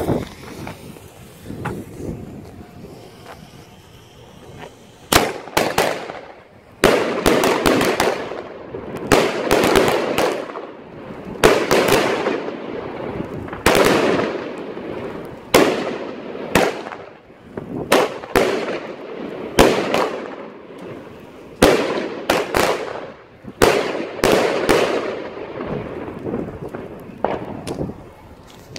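Evolution Fairytail 6 firework cake firing. About five seconds in, it starts sending up shots: sharp launch thumps, each followed by the bursts of the stars. The shots come in clusters every second or two for about twenty seconds.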